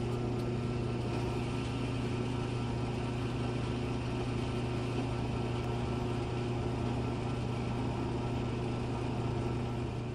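A small electric pump motor running with a steady, unchanging hum, dispensing from a miniature fuel pump.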